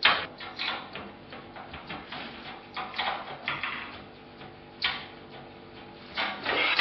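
A computer power supply unit being worked loose and slid out of its steel PC case: a run of metallic clicks, knocks and scraping, with sharp clunks at the start and about five seconds in.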